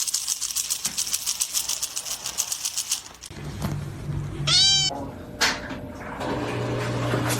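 A cat's single meow, rising and falling in pitch, about two-thirds of the way through. It comes after a few seconds of fast, even ticking, and a steady low hum follows near the end.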